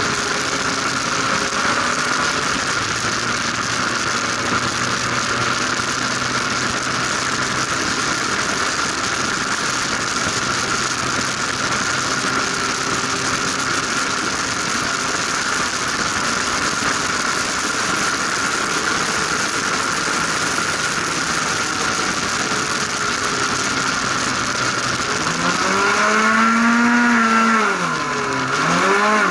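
Formula RP1 single-seater's engine running at steady high revs under heavy wind and road noise in the open cockpit. Near the end the revs climb, then fall sharply and pick up again as the car goes into a corner.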